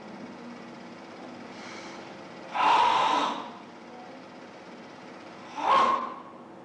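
Forceful ibuki breathing of a Goju-ryu kata: two hard, hissing exhalations, a longer one about two and a half seconds in and a shorter one near the end, with a faint breath in before the first. Under them runs the steady hiss and hum of an old film recording.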